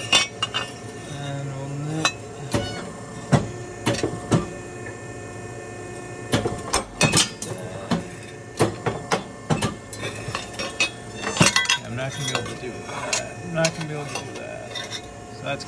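An ironworker's notcher biting through steel plate in a run of sharp metallic snaps at irregular intervals as a bracket is trimmed a nibble at a time, with the machine's motor humming steadily underneath.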